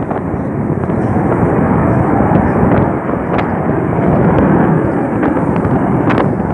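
Steady jet noise from a Saab JAS 39 Gripen fighter's Volvo RM12 turbofan engine as it flies overhead, with a few faint crackles.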